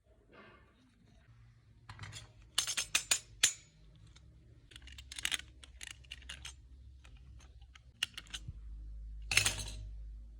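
Irregular sharp clicks and clatters of small hard parts being handled, densest a few seconds in, with one louder clatter near the end over a faint low hum.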